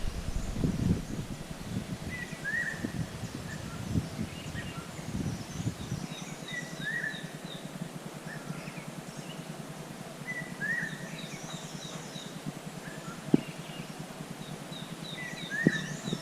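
A wild bird calling: a short curved call repeated about every four seconds, with quick runs of four or five higher, sharp notes in between. A low rumble fills the first several seconds.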